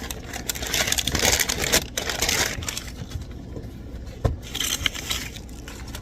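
Packaging being handled and unwrapped by hand, crinkling and rustling, loudest in the first half. A single sharp knock comes about four seconds in.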